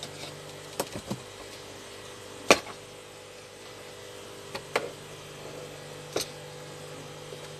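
About six sharp knocks and clicks as the opened metal inverter case and its circuit board are handled and moved on a workbench, the loudest about two and a half seconds in, over a faint steady hum.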